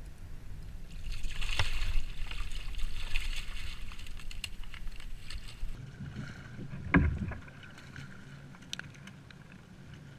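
Water splashing and churning as a hooked bluefish thrashes while being scooped into a landing net beside a kayak, loudest in the first half, then one sharp knock about seven seconds in.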